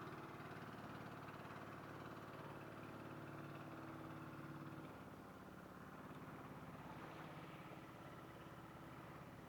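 Faint, steady engine hum, as of a motor idling, its pitch and level shifting slightly about halfway through.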